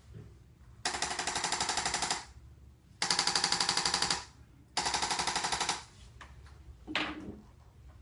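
Handheld electric percussion adjusting instrument pressed against a man's back, firing three bursts of rapid rattling taps, each about a second long with short pauses between them.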